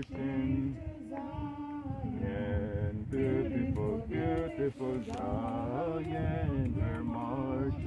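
Men and women singing a hymn together unaccompanied, with long held notes.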